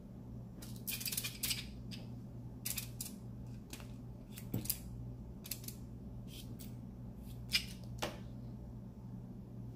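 Scattered light clicks and ticks of toothpicks and a plastic toothpick holder being handled on a cutting board while toothpicks are pinned into stuffed eggplant, over a steady low hum.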